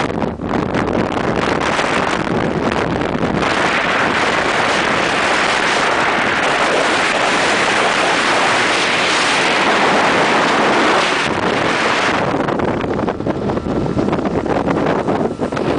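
Motorboat running flat out on open water: a Yamaha 85 hp outboard motor's steady drone under the rush of wind buffeting the microphone and spray from the wake. The rush turns more gusty and uneven about twelve seconds in.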